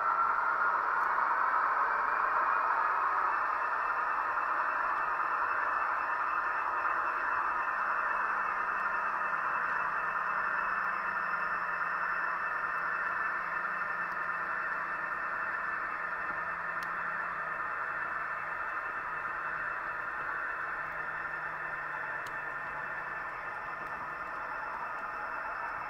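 H0 scale model locomotives running on the track: a steady whirring of their electric motors and wheels rolling on the rails. A whine rises in pitch over the first few seconds as a locomotive speeds up, and the level falls slowly as they pull away.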